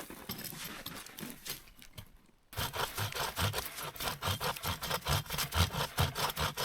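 A small, fragile hand saw cutting a dead wooden branch: quick back-and-forth strokes, about three a second, start abruptly about two and a half seconds in after a few faint rustles.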